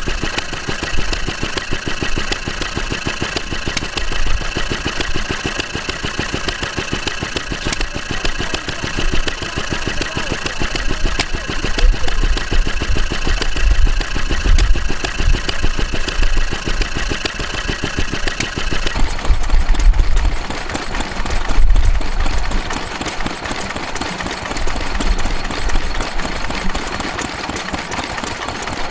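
Grey Wolseley air-cooled single-cylinder stationary engine running steadily with a fast, regular beat and a steady high whine over it. About two-thirds of the way through, it gives way to a green hopper-cooled stationary engine running and belt-driving a water pump, with water splashing from the pump outlet.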